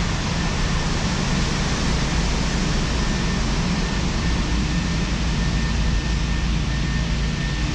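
Steady rumble and hiss of road traffic carried into a long concrete pedestrian tunnel, heaviest in the low end.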